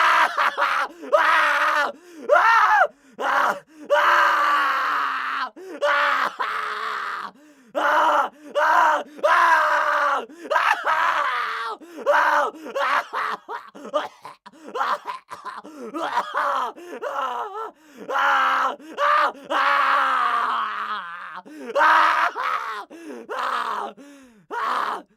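A man screaming and groaning in agony, one drawn-out cry after another with short gasping breaks, as under torture. The cries stop abruptly just before the end.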